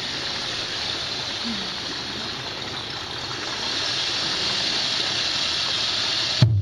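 Fountain water running steadily, an even rushing hiss of falling water. Percussive music cuts in suddenly right at the end.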